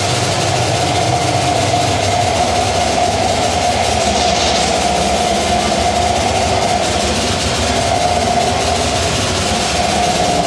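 Loud electronic noise drone from a live laptop performance: one steady mid-pitched tone held over a dense hiss and a low rumble, without a beat.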